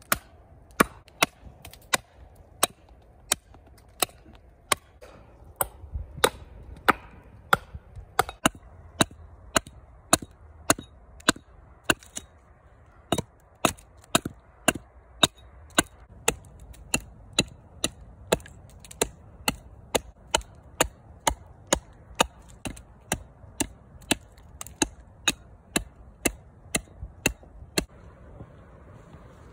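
Side axe chopping into a wooden bowl blank on a chopping block, hewing it to shape: a steady series of sharp chops, about one and a half a second.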